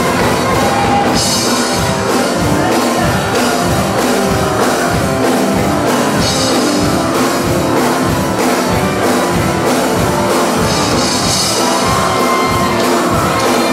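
Live church band music with a drum kit keeping a steady beat, and a cymbal wash about every five seconds.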